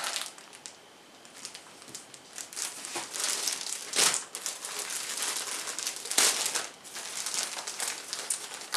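Thin plastic bag around a folded T-shirt crinkling and rustling as it is handled, with louder crackles about four and six seconds in.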